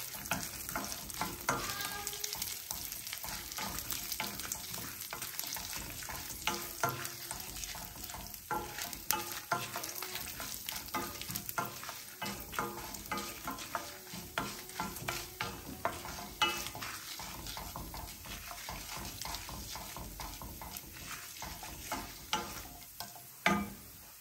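Wooden spoon stirring chana dal, urad dal and dried red chillies frying in oil in a stainless steel pan: a steady sizzle with frequent clicks and scrapes of the spoon against the pan. Near the end a louder knock as the spoon is set down in the pan.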